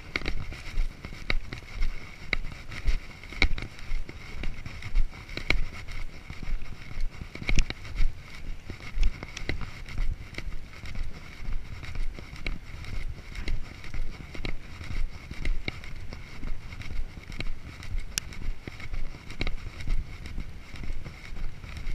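Footsteps walking steadily on a rough concrete break wall, about two steps a second.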